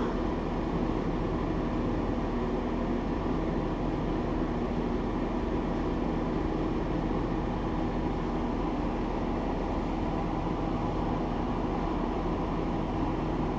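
A steady, unchanging mechanical hum with an even rush of noise, level throughout.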